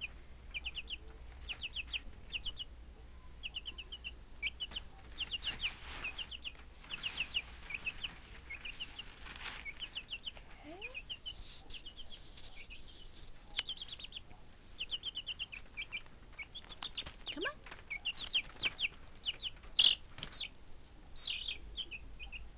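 Baby chick peeping: short, high, downward-falling peeps in quick runs of several, with brief pauses between runs, and a few faint clicks among them.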